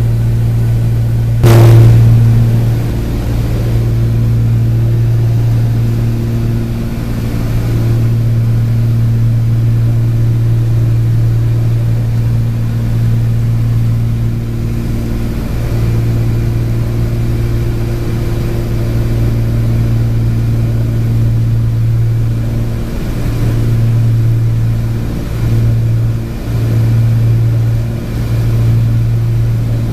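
Twin piston engines of a Cape Air Cessna 402 droning steadily, heard from inside the cockpit in cruise descent. A single sharp click about a second and a half in, and the drone dips briefly a few times near the end.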